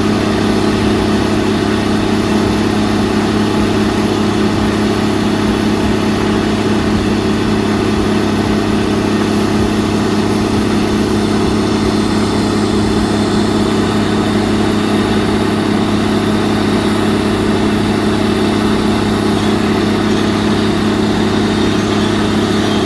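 Diesel engine of a borehole drilling rig running steadily at a constant pitch, a loud even drone.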